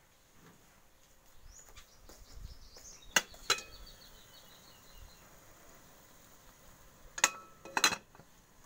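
Sharp metallic clinks of cooking pots or lids being handled, two close pairs with a short ring after each; between them a faint run of high, quick chirping notes that steps down in pitch, like a small bird calling.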